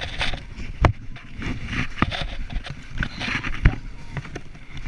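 Clothing rustling and scraping against a chest-mounted camera as a person clambers across a rope net, with a few sharp knocks, the loudest about three and a half seconds in.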